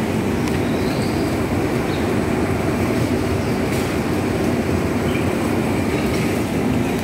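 Steady low rumbling noise without breaks, with a few faint high chirps now and then.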